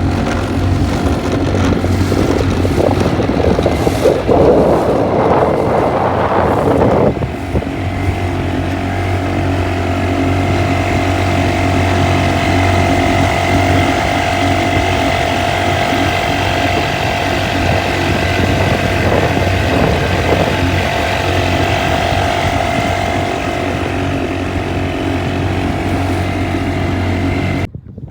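Boat's outboard motor running steadily at speed, with a rush of wind and water that is heavier for the first seven seconds. It cuts off abruptly near the end.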